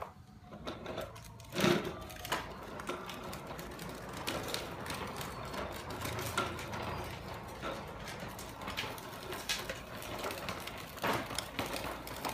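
Hard plastic wheels of a child's ride-on tricycle rolling over stone paving, a continuous dense clatter with a few sharper knocks, the loudest a little under two seconds in.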